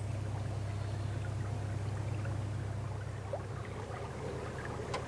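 Narrowboat engine running with a steady low drone as the boat cruises, with a faint wash of water along the hull.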